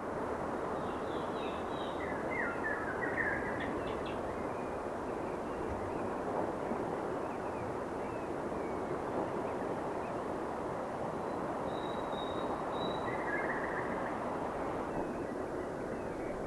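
Steady outdoor background noise, with faint, short bird calls over it a few times: a cluster in the first few seconds and more near the end.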